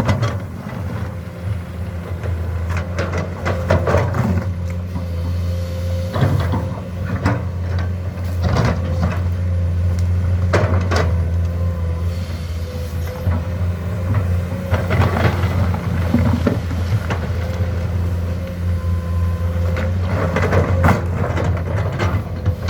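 Komatsu excavator's diesel engine running steadily under load, with scattered clanks and knocks from digging and loading a dump truck.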